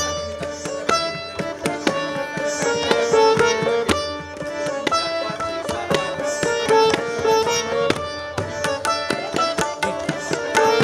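Sitar playing a melody of quick plucked notes, its strings ringing on between them.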